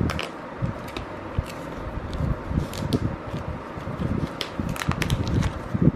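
Paper seal strips being torn from an iPhone 12 mini box while it is handled: scattered rustles, crinkles and light taps, with soft thumps as the box moves on the bed.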